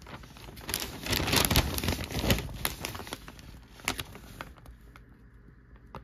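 Newsprint rustling and crinkling as a newspaper page is handled and refolded, loudest in the first couple of seconds, with a few sharp crackles before it dies away about five seconds in.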